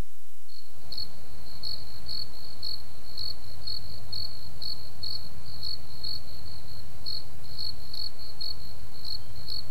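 Cricket chirping: a high chirp repeating two to three times a second over a low background hiss. It is the stock 'crickets' gag for nothing happening.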